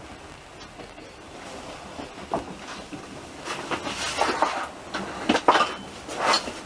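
A passenger train running, heard from aboard: a steady rumble of the carriage with a run of sharp, irregular clacks from the wheels on the track in the second half.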